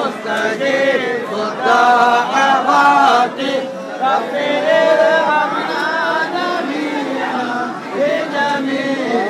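Men's voices chanting an Arabic devotional supplication together, sung in phrases that rise and fall with short pauses between them.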